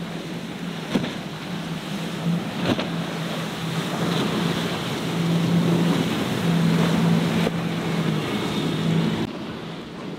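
Boston Whaler's triple Mercury outboard engines running at speed through chop: a steady low drone that grows louder as the boat passes and drops away near the end, over the rush of spray, waves and wind on the microphone. A couple of sharp knocks come in the first few seconds.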